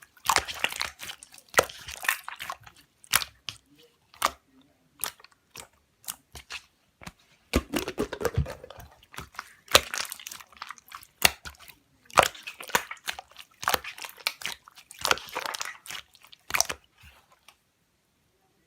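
Slime being squished and pressed by hand, making rapid bursts of crackling, popping clicks that come and go in runs and stop shortly before the end.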